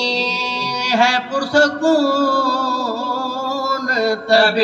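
A man's solo voice chanting a mournful majlis recitation, the sung lament of Muharram mourning, in long drawn-out notes with wavering melodic turns and brief breaths between phrases.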